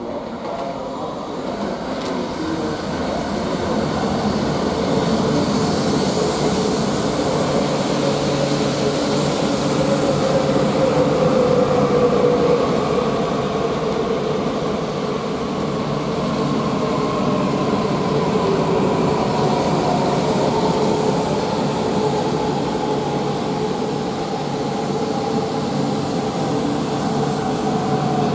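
Coupled E4 series Max double-deck Shinkansen sets running slowly past, a steady rumble of wheels on rail that grows louder over the first ten seconds. Over it, the traction motors' whine falls gradually in pitch as the train slows to a stop.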